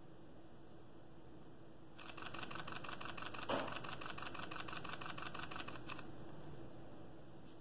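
Fujifilm X-H1 mechanical shutter firing a continuous burst: a rapid, even run of shutter clicks lasting about four seconds. There is one louder knock partway through.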